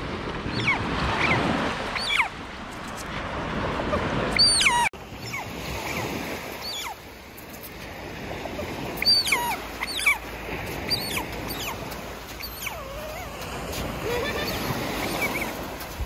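Pet otter chirping: short high-pitched calls, each falling in pitch, in scattered bunches over the steady wash of small surf.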